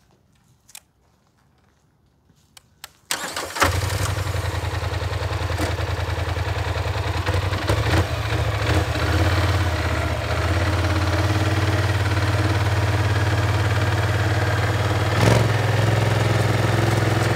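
Polaris Scrambler XP 1000 ATV's twin-cylinder engine starting about three seconds in, then idling steadily, with light throttle blips as it climbs the loading ramps, the strongest near the end.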